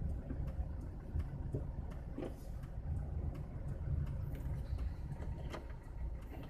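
Low, steady road and engine rumble of a moving car heard from inside the cabin, with scattered light clicks and knocks at irregular moments.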